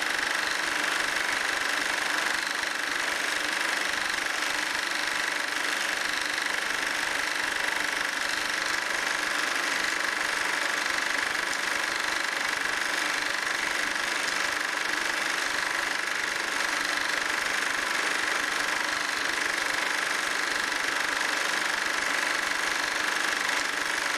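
Bauer B 8 B 35 mm cinema projector running steadily, film passing through its sprocket and intermittent mechanism.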